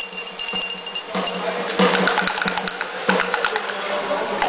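Small brass handbell shaken and ringing with several high overtones, stopping just over a second in. Then a fast clatter of cheering-section claps and rattles.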